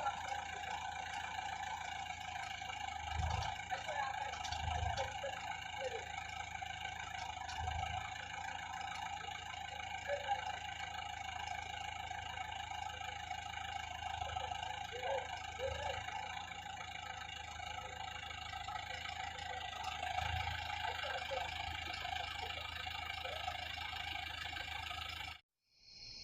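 Engine running steadily with a constant whine, a few dull low thumps, and faint voices in the background; the sound cuts off abruptly near the end.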